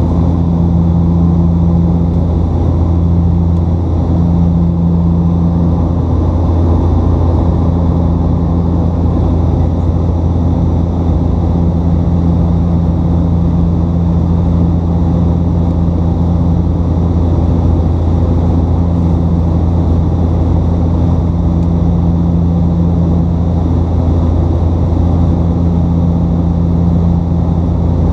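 Cabin drone of a Bombardier Dash 8 Q400's Pratt & Whitney PW150A turboprops and six-blade propellers in flight, heard from a seat beside the propeller. A steady, loud low drone with a higher hum that swells and fades every few seconds over a constant rush of air.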